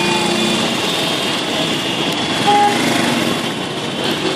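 Busy street traffic: a steady din of motorcycle and small engines, with a short horn toot about two and a half seconds in.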